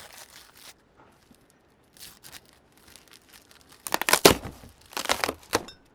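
A gift's wrapping being torn open and crumpled in several short rustling bursts, the loudest about four seconds in.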